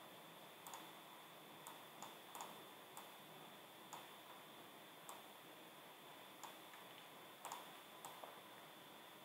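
Faint, isolated clicks of a computer mouse, about a dozen at irregular intervals, over a steady low hiss with a faint high-pitched whine.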